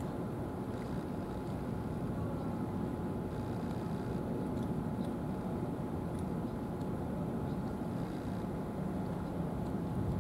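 Steady low mechanical rumble with a faint constant whine running through it, and a few faint ticks.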